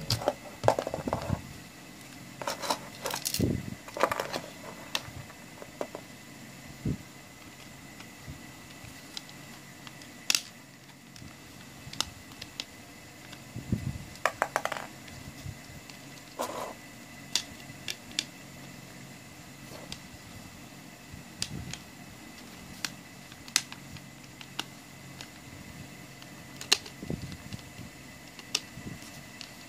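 Plastic case of a Toshiba AM/FM tuner pack being handled and turned over in the hands: scattered clicks, taps and light knocks, busiest in the first few seconds.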